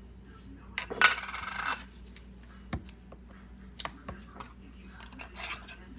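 Kitchen handling sounds as ground white pepper is measured out with a tablespoon: a brief metallic rattle about a second in, then scattered light clicks and taps of the spoon and spice container, with another short rattle near the end.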